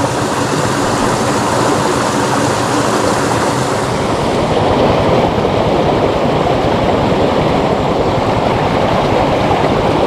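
Swift water rushing steadily through a small drainage ditch, a loud, even hiss whose higher part thins out about four seconds in.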